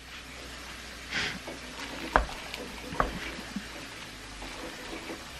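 A wooden spoon scooping cooked rice into a plastic-lined slow cooker crock: a short scrape about a second in, then a few light taps of the spoon.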